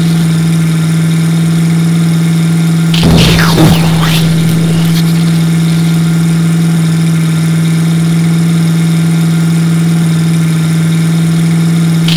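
Cartoon monster truck engine sound effect: a steady, unchanging engine drone that sounds looped. About three seconds in, a short loud burst of noise breaks over it.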